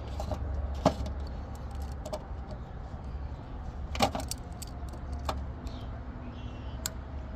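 Plastic hubcap being fitted by hand, its fasteners spun on, giving a few sharp plastic clicks and taps about one, four and five seconds in over a steady low hum.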